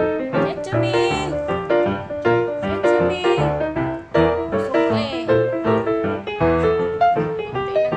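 Background music: a piano tune of quick, evenly paced notes.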